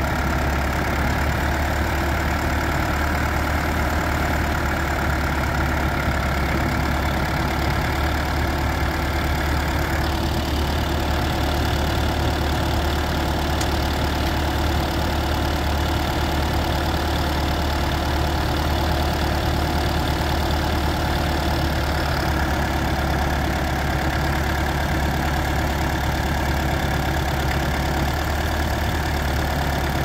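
Massey Ferguson 35 tractor engine running steadily under load as it pulls a two-furrow mounted plough through the soil.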